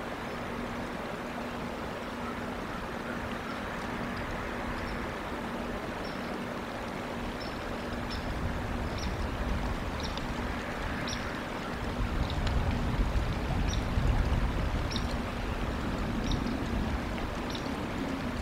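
Outdoor ambience at an eagle cam's microphone: a steady rushing noise with a faint steady hum, short high chirps every second or so, and a low rumble that comes in about twelve seconds in.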